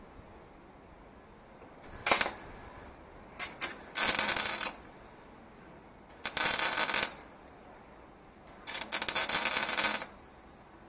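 Electric arc welding in a series of short welds: a brief tack, two very short strikes, then three longer welds of about a second each, the last and longest ending near the close.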